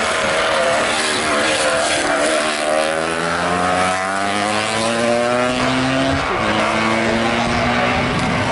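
Historic road-racing motorcycle engines at full throttle going by. One engine climbs steadily in pitch as the bike accelerates, drops back in pitch about six seconds in as it shifts up, then climbs again.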